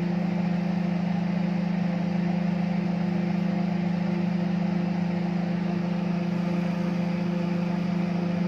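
Microwave oven running with a steady electrical hum.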